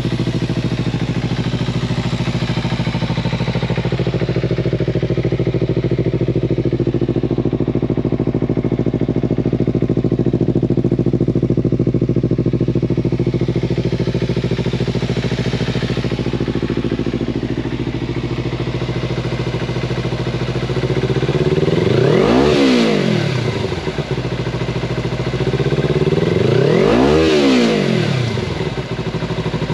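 2014 Kawasaki Ninja 300's parallel-twin engine idling steadily through an aftermarket Danmoto exhaust, then blipped twice: about 21 seconds in and again near the end, the revs climb quickly and drop back to idle.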